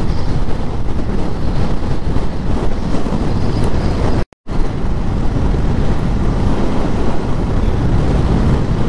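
Wind rushing over the microphone with the steady road and engine noise of a motorcycle cruising on a highway. The sound cuts out completely for a moment about four seconds in.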